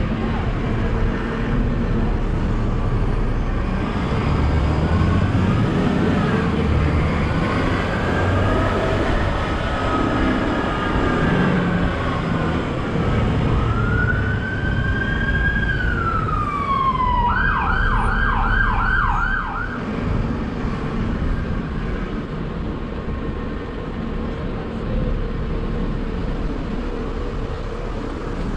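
Open-top double-decker bus running at low speed, its engine and road noise rumbling steadily. A bit past the middle, a siren sounds one slow rise and fall, then switches to a fast yelp of about six quick sweeps for a couple of seconds before stopping.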